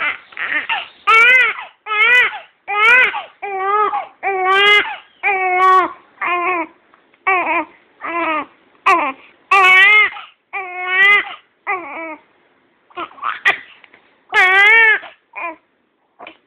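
Young baby crying in a long run of short wails, about one a second, each with a wavering, warbling pitch. The crying breaks off briefly about twelve seconds in, then starts again and dies away near the end.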